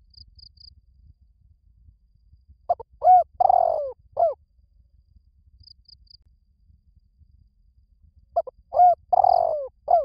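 Spotted dove cooing: two phrases, one about three seconds in and one near the end. Each phrase has four low notes, the third long and falling in pitch. Faint high chirps sound between the phrases.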